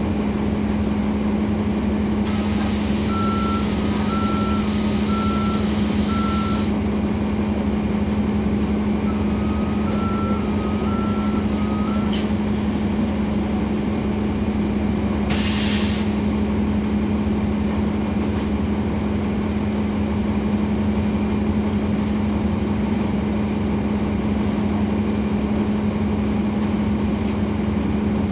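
Inside a NABI 416.15 transit bus, its Cummins ISL9 diesel engine running with a steady hum. About two seconds in, a long release of air hiss comes with a two-tone warning beep for about four seconds. A second run of beeps follows a few seconds later, and a short, sharp air hiss comes about halfway through.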